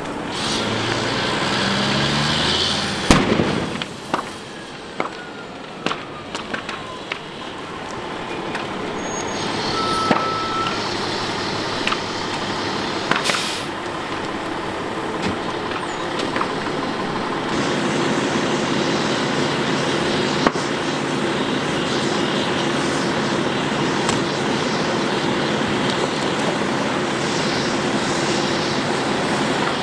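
A semi-truck burning, with sharp cracks and pops going off from the fire, loudest just after three seconds, over a steady rush of noise. At the start a diesel fire engine's engine rises in pitch in steps, and from a little past halfway a steady engine drone with a low hum carries on.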